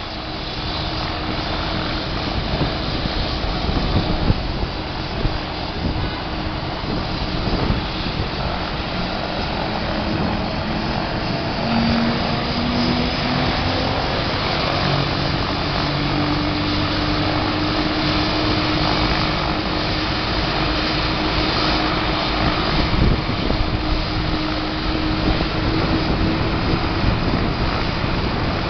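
Helicopter engine and rotor running, a loud steady drone with a low hum that drifts slowly in pitch.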